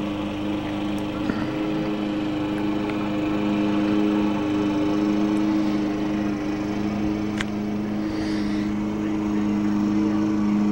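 Gasoline walk-behind push lawn mower engine running at a steady speed, an even, unbroken drone.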